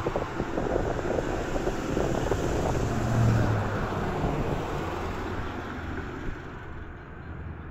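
Road traffic on the street beside the tracks, with a low engine hum that swells briefly about three seconds in, and wind buffeting the microphone; the sound fades slowly toward the end.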